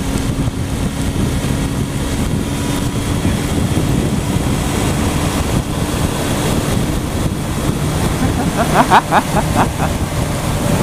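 Sport motorcycle riding at highway speed in the rain: a steady engine note under rushing wind on the microphone and the hiss of tyres and spray on the wet road. A brief voice cuts in about nine seconds in.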